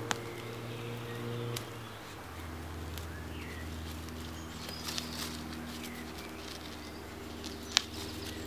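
Hands scraping and breaking up forest soil and spruce needle litter while digging out a shallow spruce root, with a few sharp snaps, the loudest just as it starts and near the end. A steady low hum runs underneath and drops in pitch about two seconds in.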